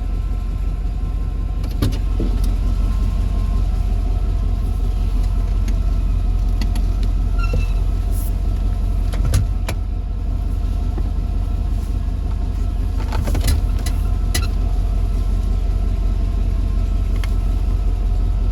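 Car engine idling steadily, with a few brief clicks.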